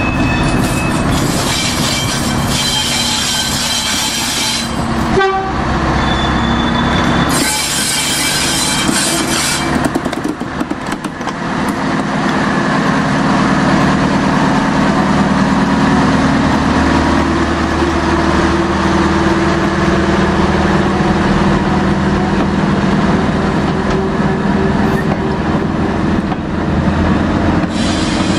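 Train of short coal wagons moving slowly, its wheels squealing on the rails during the first ten seconds. From about twelve seconds in, a small diesel shunting locomotive's engine runs steadily as it hauls the wagons past.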